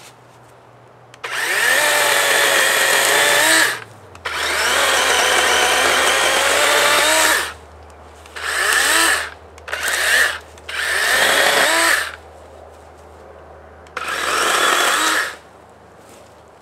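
DeWalt 20 V cordless electric chainsaw run in six bursts of one to three seconds. In each burst the motor whine rises as it spins up and falls as it coasts down when the trigger is released.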